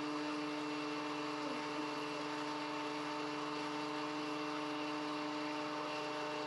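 Hot-air popcorn maker's blower fan running steadily, a hum over a rush of air, swirling the kernels while they heat and before any have begun to pop.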